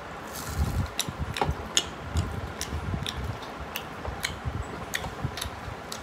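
Close-up eating sounds: chewing with irregular sharp mouth clicks and smacks, one or two a second.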